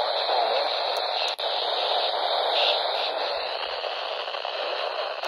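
Steady static hiss from a NOAA weather radio receiver on a weak, noisy signal, briefly dipping once about a second and a half in.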